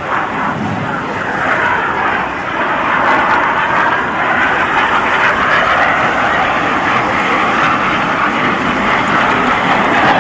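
BAE Hawk T1 jet trainers passing low: loud jet noise that swells about a second and a half in and stays loud, its pitch dipping and then climbing again.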